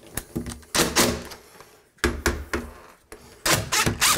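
Metal door-lock hardware on a steel door, a deadbolt and lever handle, clicking and rattling as it is loosened and shifted. The clicks come in several quick clusters, loudest about a second in and again near the end.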